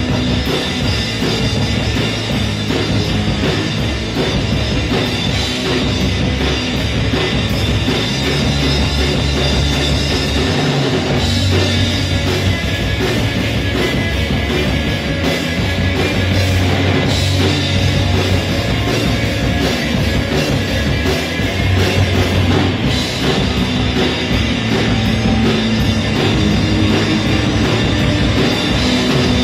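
Live rock band playing an instrumental stretch: electric guitars over a drum kit, loud and continuous.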